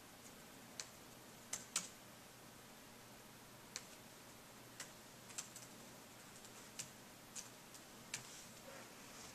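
Faint laptop keystrokes and clicks, about a dozen scattered over the stretch with pauses between them, as a phone number is typed into a web form.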